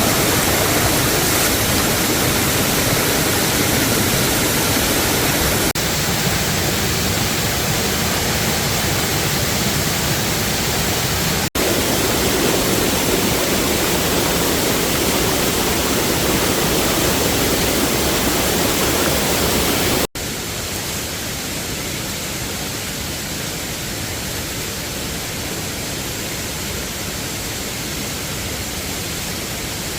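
Steady rush of a waterfall. The sound changes abruptly three times, about 6, 11.5 and 20 seconds in, and is a little quieter after the last change.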